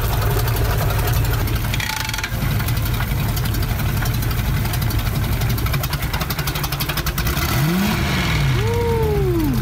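Boat engine with a Mercury sterndrive running steadily on its trailer, cooled by a garden hose, with water spraying out around the drive. Near the end a whine rises and falls in pitch twice.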